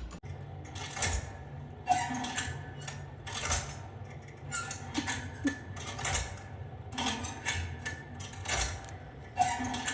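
Irregular light clicks and clatters, one or two a second, over a faint low hum.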